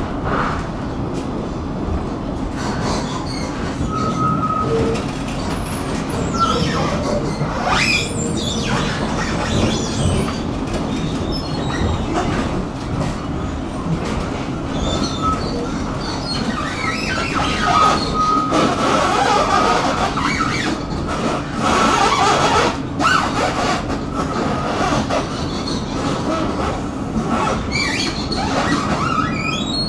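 Tram running along its rails: a steady motor hum under the rumble of the wheels, with clicks over rail joints. Brief high wheel squeals come about four seconds in, and a longer one past the middle.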